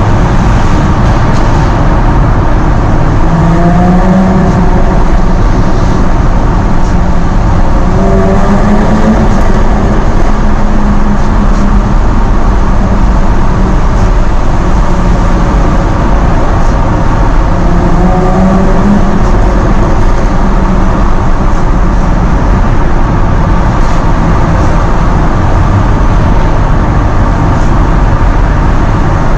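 Jaguar F-Type engine under way, over loud, steady road and wind noise, with the engine note rising in pitch several times as the car accelerates.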